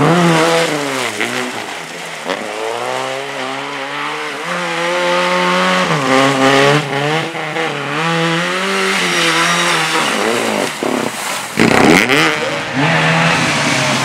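Lada 2107 rally car's four-cylinder engine revving hard, its pitch climbing and dropping over and over as the car slides through a muddy corner. Near the end a different small car's engine takes over: a Trabant's two-stroke.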